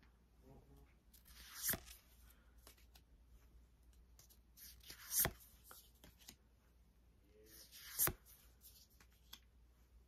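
Paper trading cards being handled: three brief swishes as a card is slid off the stack and the next one is brought to the front, about every three seconds, with faint rustling in between.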